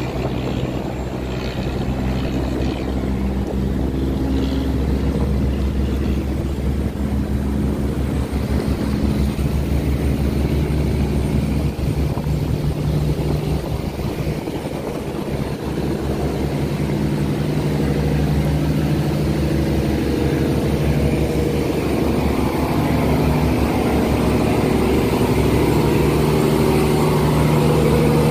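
Boat engine running steadily, a low drone whose pitch shifts. It dips briefly about halfway through, then grows louder toward the end.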